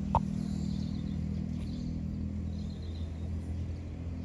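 Outdoor ambience: a steady low rumble with a short click just after the start and a few faint high chirps.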